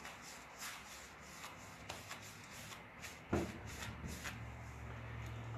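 Paintbrush swishing over a painted wooden cabinet door in a run of short, quick strokes. A thump a little past halfway, then a low steady hum.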